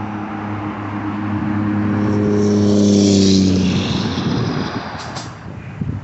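A motor vehicle passing by: a steady engine hum with road noise grows louder, peaks about three seconds in, then fades as it moves away.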